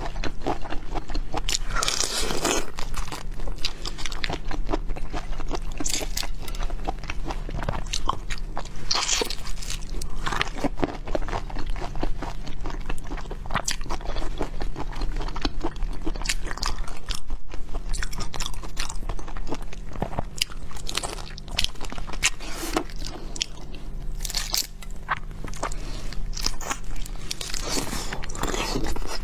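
Close-miked eating of shrimp: dense, irregular crunching and crackling of shell and flesh being bitten and chewed, with wet chewing between the bites.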